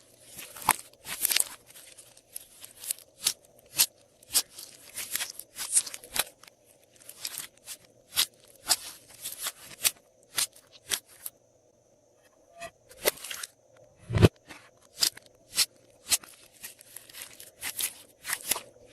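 Glossy slime being pressed and stretched by hand, making sharp sticky clicks, pops and crackles, a few a second. There is a short pause near the middle and one dull thump a little later.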